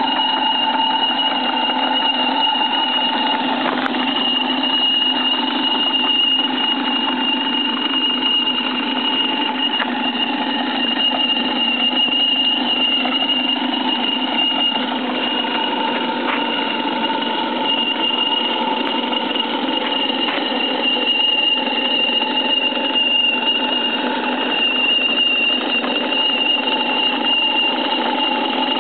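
1-inch-scale Burrell live-steam traction engine model running steadily under load as it tows a trolley, a rapid mechanical chatter with a steady high whine over it.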